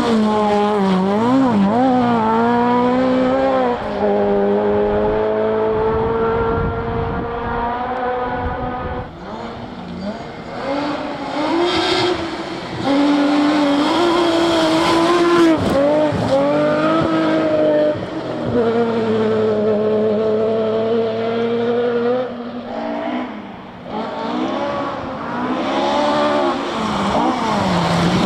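Rally car engines at full throttle on a gravel stage, revving high and changing gear, the engine note climbing and dropping repeatedly. Twice the engine drops away briefly, as if lifting off, before climbing again.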